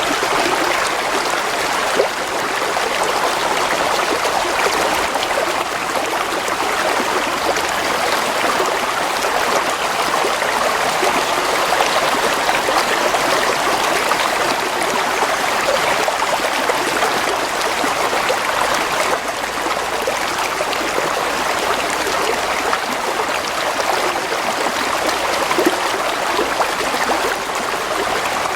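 Gently flowing stream water, a steady babble and trickle with no break.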